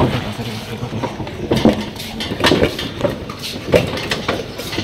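A vehicle on the move along a road: steady engine and road noise, with several irregular knocks and rattles.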